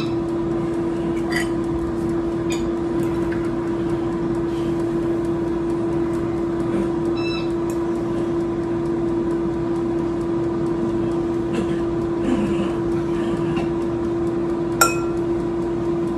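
Air fryer running with a steady fan hum. Over it, a fork clinks and scrapes against a bowl a few times while chicken pieces are coated in batter, with one sharper clink near the end.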